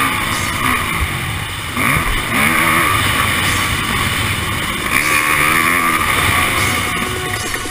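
Yamaha motocross bike engine heard through an onboard camera, revving up and down repeatedly as the bike is ridden through corners, its pitch rising and falling several times.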